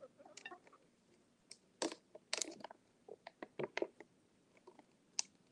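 Backyard hens pecking at food scraps, their beaks tapping and crunching against the dish and brick patio in faint, irregular clicks.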